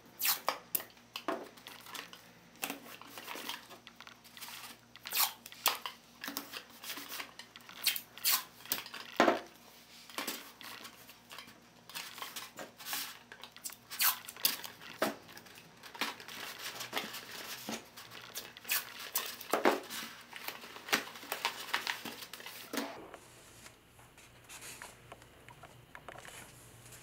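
Blue painter's tape being pulled off the roll and torn into strips, with the construction-paper tube rustling as the tape is pressed on: a busy run of short, sharp rips and crackles that dies down a few seconds before the end.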